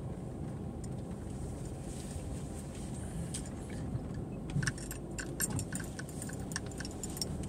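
Steady low rumble inside a car cabin as the car rolls slowly through a parking lot. From about four and a half seconds in, a run of light, irregular clicks joins it.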